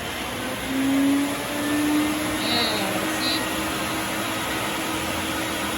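Sirena water-filter vacuum cleaner running steadily, its motor whine stepping up in pitch and loudness about a second in and then holding steady.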